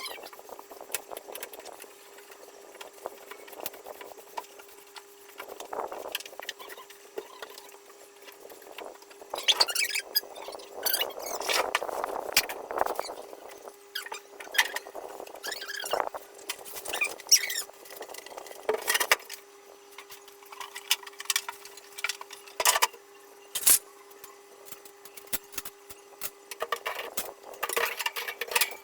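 Hand-cleaning a refrigerator's plastic interior: squeaky wiping and scrubbing, with scattered knocks and clicks, busiest about ten to thirteen seconds in.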